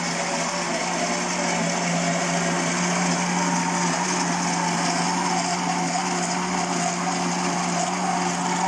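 Countertop blender motor running steadily at one speed, blending a jar of thick fermented rice-and-bean dosa batter.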